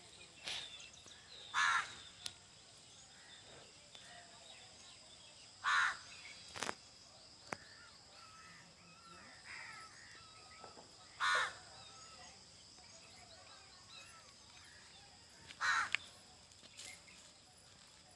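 A crow cawing: four single harsh caws spaced about four to five seconds apart, with fainter chirping from other birds in between.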